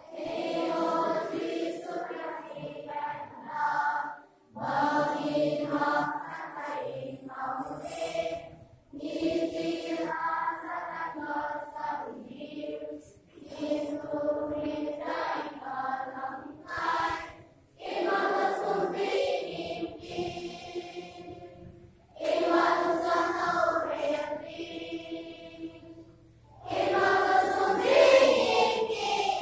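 A group of children singing together, in phrases of about four seconds with short breaks between them.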